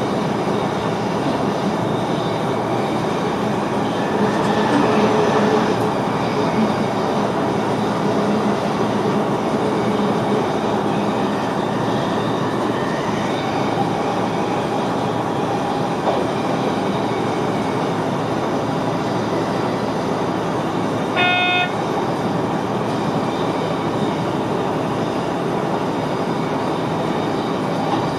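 Running noise of a VIRM double-deck electric train heard inside the driver's cab while underway: a steady rumble and rail noise. About three quarters of the way through a brief, sharp tone sounds once.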